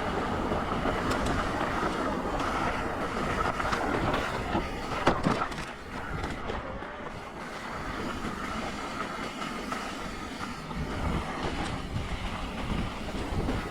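Mountain bike rolling fast down a dirt singletrack: tyre noise and rattle with wind buffeting the camera microphone, and a sharp knock about five seconds in.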